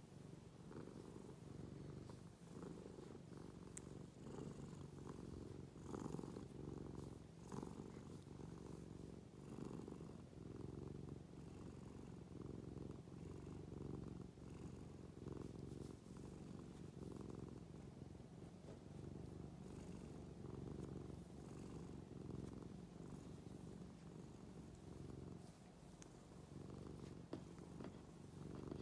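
White cat purring steadily while being stroked. A soft, low rumble swells and fades in a regular rhythm.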